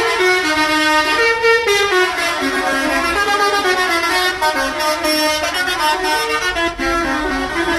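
Indonesian bus 'telolet' horns, several at once, playing overlapping multi-note melodies that step up and down in pitch without a break.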